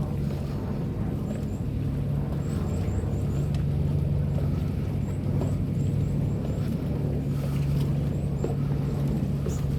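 An engine running steadily with a low, even hum, with faint short high chirps coming and going.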